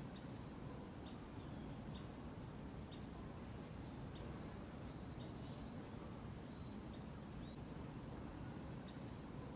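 Faint forest ambience: short high bird chirps repeating every second or so over a low steady rumble.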